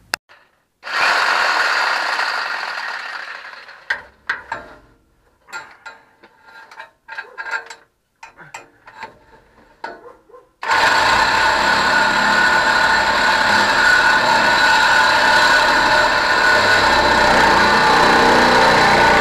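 Sawzall reciprocating saw cutting through a pickup's steel exhaust pipe just ahead of the muffler. From a little past halfway it runs loud and steady with a high ringing whine; before that come scattered knocks and clicks as the blade is set against the pipe.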